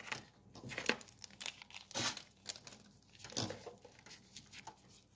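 Soft, irregular crinkling and rustling handling noises, a scatter of short crackles with no steady rhythm.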